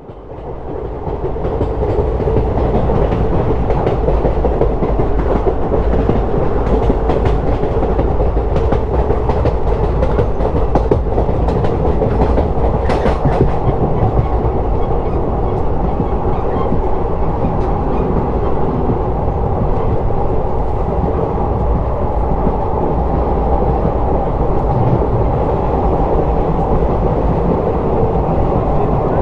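A train running along the track, heard from on board: a steady noise of wheels on rails that comes up over the first two seconds and then holds even, with one sharp clack about 13 seconds in.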